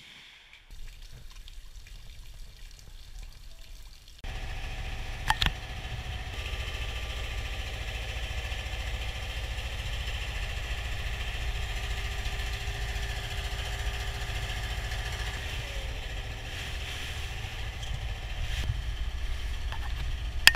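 A wooden river boat's motor running steadily, with water and wind rushing past. It sets in about four seconds in, after a quieter stretch, and one sharp click is heard shortly after.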